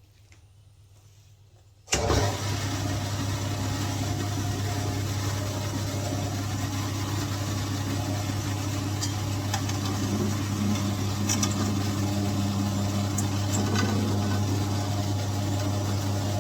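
Lapidary rock saw switched on about two seconds in, its electric motor then running steadily with a strong low hum as the blade cuts into a thunderegg.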